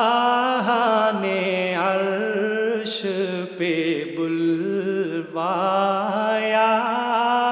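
A solo voice chanting an Urdu Islamic devotional hymn (naat) with no instruments. It holds long, drawn-out notes that waver slightly and pauses briefly between phrases.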